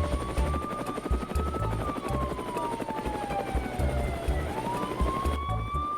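Emergency-vehicle siren wailing slowly: its pitch rises, falls over about three seconds, then rises again. Low, uneven thudding runs beneath it.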